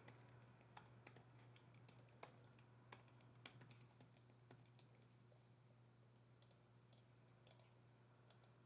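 Faint computer keyboard typing, a scatter of light key clicks over the first four seconds or so, thinning out to near silence with a low steady hum underneath.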